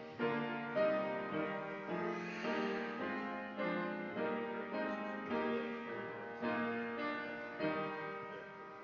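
Grand piano playing a slow run of chords, struck about every half second and left to ring. The last chord fades away near the end.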